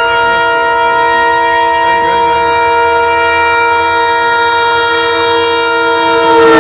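Diesel locomotive's horn sounding one long, loud, continuous blast as the train approaches at speed. Near the end the horn's pitch drops as the locomotive passes, and the rush of the train comes in.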